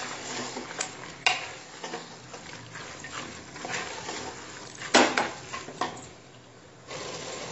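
Soaked beans and lentils being stirred and fried in masala in a pressure cooker: a spatula scraping and knocking against the pot over a low sizzle, with one sharp knock about five seconds in.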